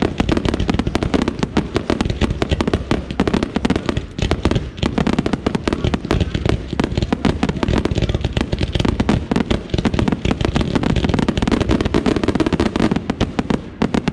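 Fireworks finale: multi-shot firework cakes firing in a dense, unbroken barrage of launches and bursts, many sharp bangs and crackles every second with no pause.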